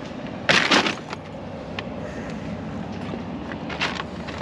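Groceries being handled: two short crackling rustles of plastic packaging, one about half a second in and one near the end, with a few light clicks between.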